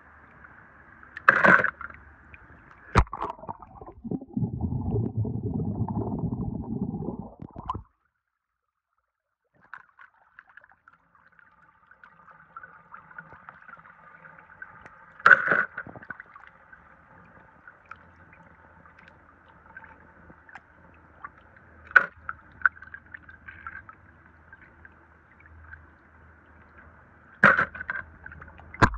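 Swimming pool water trickling steadily, with a few sharp splashes as wet die-cast toy cars are dipped in and lifted out. A louder stretch of sloshing comes about four seconds in, then the sound cuts out completely for about a second and a half.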